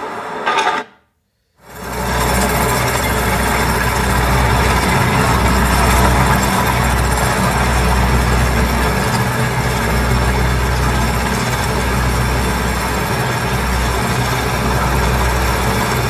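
Construction-site machinery running steadily: a deep hum under a loud, even noise that covers the whole range from low to high. About a second in, the previous construction clip cuts off, and there is a brief silence before the machine starts.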